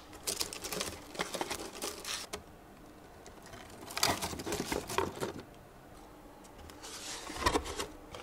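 Honeycomb kraft packing paper crinkling and rustling in a cardboard box as items are packed into it, in three spells of crackly rustling.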